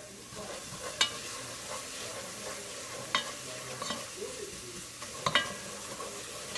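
Food sizzling in a ceramic non-stick frying pan while a utensil stirs it, knocking sharply against the pan four times.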